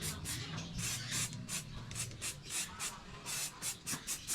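Hand file rasping back and forth on metal in quick, even strokes, about four a second.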